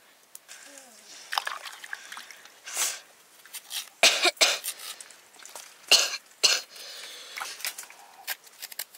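A large cleaver-style knife scraping and shaving the skin off raw potatoes over a bowl of water, in irregular sharp strokes, the loudest about four and six seconds in.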